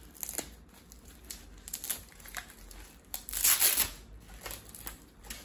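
Plastic packaging crinkling and rustling in short irregular bursts as it is handled, loudest in a longer rustle about three and a half seconds in.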